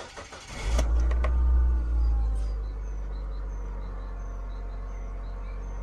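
Mazda Premacy's 1.8-litre four-cylinder petrol engine catching on the starter well under a second in, running at raised revs for about two seconds, then settling to a steady idle. Birds chirp faintly in the background.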